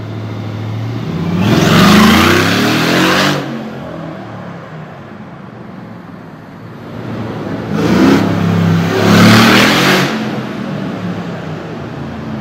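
Mercedes-AMG G-Class engine revving up hard twice, about two seconds in and again about eight seconds in, each a loud surge rising in pitch with a strong exhaust note, dropping back to a lower steady running sound between them.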